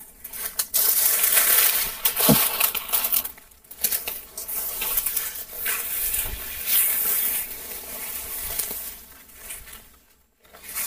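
Footsteps crunching and rustling through dry leaves, twigs and undergrowth on a forest floor, with a brief pitched sound about two seconds in.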